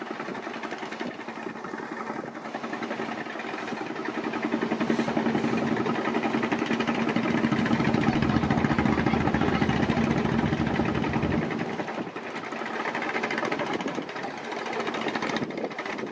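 Fishing boat's engine running with a rapid knocking chug. It grows louder through the middle and drops back a little about three-quarters of the way through.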